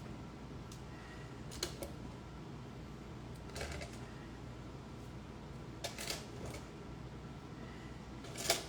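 Kitchen tongs clicking and tapping now and then as chicken pieces are tossed in teriyaki sauce: about seven faint, irregular clicks over a steady low hum.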